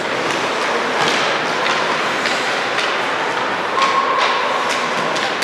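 Thuds and knocks of a basketball and players' feet on a gym court over a steady hubbub in a large hall. A short squeak sounds about four seconds in.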